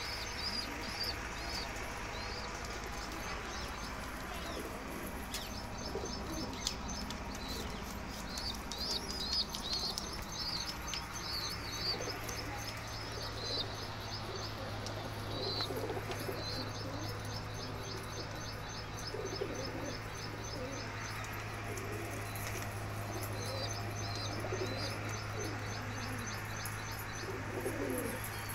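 Fancy pigeons cooing in low, rolling calls, several times in the middle and again near the end, while other birds chirp in quick high runs throughout. A steady low hum comes in partway through.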